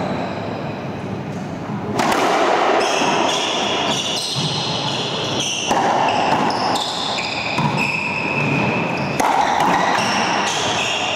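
Racquetball rally: the hollow rubber ball cracks off racquets and the court walls every second or two, each hit ringing in the enclosed court, with short high squeaks of court shoes on the hardwood floor between hits.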